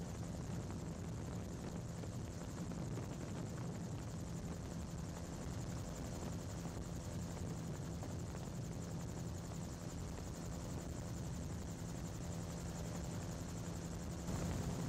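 MT-03 gyroplane in cruising flight, heard from on board: a steady drone of its engine and pusher propeller with a hiss of airflow, getting a little louder near the end.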